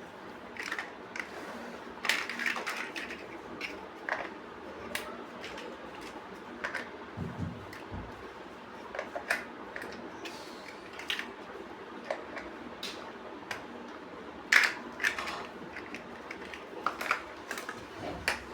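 Plastic building bricks clicking and snapping as they are handled and pressed together, in irregular sharp clicks with one louder snap past the middle and a soft low thump about halfway through.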